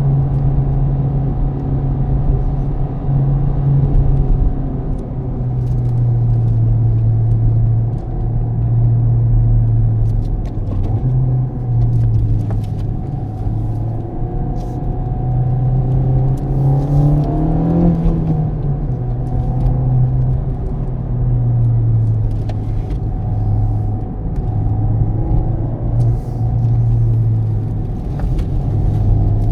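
Honda Civic Type R FK8's turbocharged 2.0-litre four-cylinder heard from the driver's seat while driving: a steady low engine drone that steps up and down in pitch several times, with a brief rise and fall in pitch about eighteen seconds in, over road noise.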